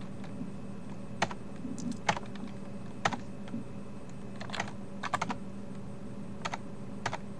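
Computer keyboard keys being pressed one at a time, about ten separate clicks including a quick run of three a little after five seconds in, over a faint steady hum.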